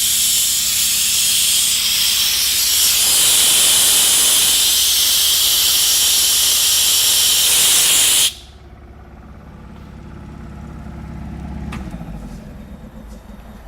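Kaeser air compressor's air exhaust blowing a loud, steady rushing hiss that cuts off suddenly about eight seconds in. After that, a much quieter steady hum of the compressor running is left.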